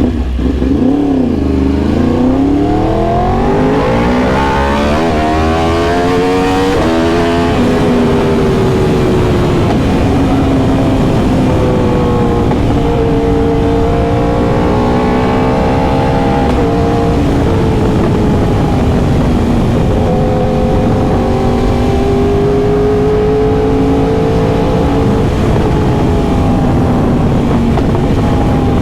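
2021 Yamaha R1M's crossplane inline-four engine under way. Its pitch dips briefly, then climbs steadily for about six seconds as the bike accelerates. It then settles into a fairly steady, slightly wavering drone at cruising speed.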